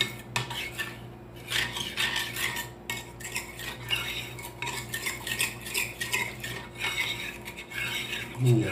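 Metal spoon stirring a thick chocolate and cream ganache in a ceramic bowl, scraping and clinking irregularly against the bowl's sides.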